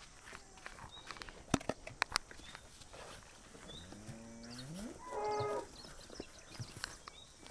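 A cow moos once, about two-thirds of the way in: a call that rises in pitch over about a second and a half and ends on a louder, higher held note. A few sharp clicks come earlier.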